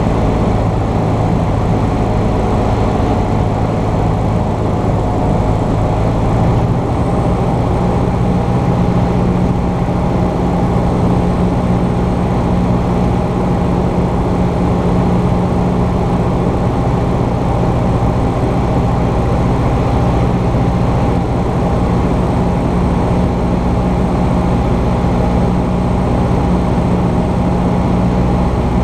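Cessna 150's Continental O-200 four-cylinder engine and propeller droning steadily in flight, heard inside the cockpit. The pitch of the drone shifts about six and a half seconds in.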